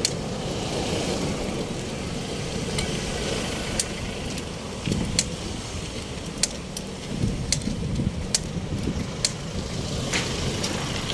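Street traffic noise: vehicle engines running, with irregular sharp clicks scattered through it.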